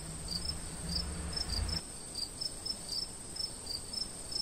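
Night insects chirping: short high chirps about three times a second over a steady high-pitched hum. A low rumble runs under the first two seconds and stops suddenly.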